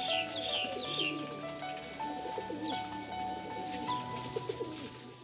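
Domestic pigeons cooing over a background music track of held notes, with a few short high falling chirps in the first second and again about halfway through.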